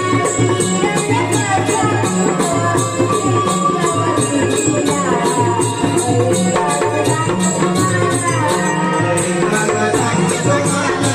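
Naman folk music: a melody with sliding pitches over a steady beat of zanj hand cymbals, about three strokes a second, with dholki drum underneath.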